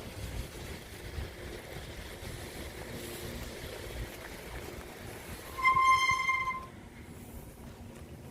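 Low rumble of wind and riding noise on the microphone, with one steady, high beep lasting about a second a little past the middle.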